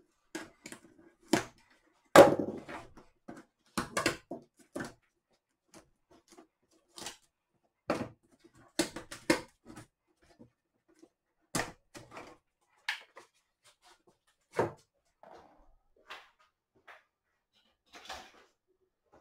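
Scattered clicks and knocks of hand work on an LED TV's sheet-metal back panel: a screwdriver being handled and put down, speaker cable plugs being pulled and the speakers lifted out. The loudest knock comes about two seconds in.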